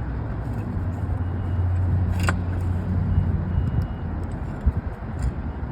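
Steady low hum of a motor vehicle's engine running, with a single sharp tap about two seconds in and a few fainter ticks near the end.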